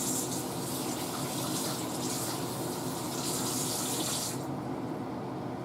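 Kitchen faucet running as hands are rinsed under it, a steady rush of water that shuts off about four and a half seconds in.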